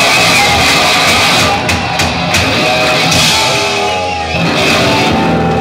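Rock band playing live through a loud PA in a bar: guitar, bass and drums in an instrumental passage with sharp cymbal hits.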